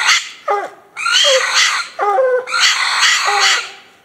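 Walker coonhound barking treed at the base of a tree: three loud, rough barks in quick succession, the last one drawn out. It is the tree bark that says the hound has a raccoon up the tree.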